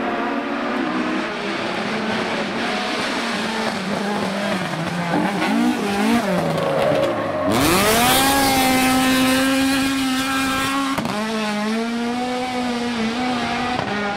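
Rally car engine working through a bend. The note drops off the throttle during the first half, then about halfway through it bursts into loud full-throttle acceleration close by, the pitch rising and holding high. A quick gear change comes about three seconds later, and it carries on pulling.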